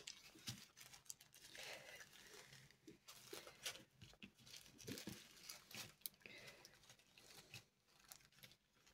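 Faint crinkling of small zip-lock plastic bags of diamond painting drills being handled, with scattered light ticks as the drills shift inside.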